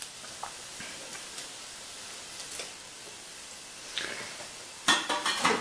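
Frikandel deep-frying in a home deep fryer: hot oil sizzling with small scattered crackles. Near the end come a few sharp metallic clatters.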